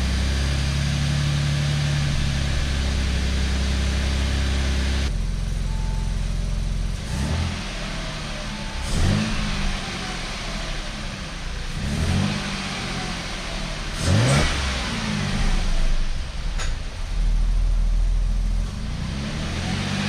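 Audi 3.0-litre supercharged V6 running just after a B12 piston soak. It idles steadily at first, then is revved several times in short blips, each climbing and dropping back to idle.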